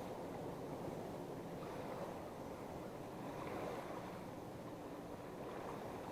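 Wind and choppy lake water lapping against a small fishing boat: an even rushing noise, with a faint steady low hum underneath.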